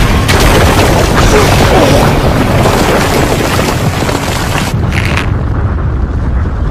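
Anime explosion sound effects: a loud, dense booming rumble with debris, then a brief crash about five seconds in, after which it settles into a duller low rumble.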